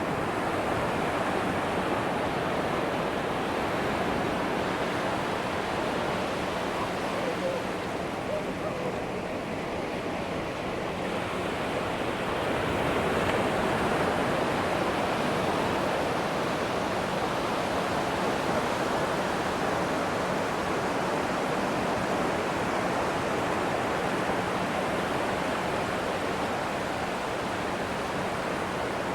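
Atlantic surf washing onto a sandy beach: a steady rush of breaking waves that swells slightly about halfway through.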